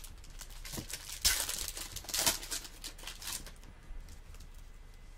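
Bowman baseball trading cards being slid and flicked through by hand: a run of quick rustling swishes for about three seconds, then quieter handling.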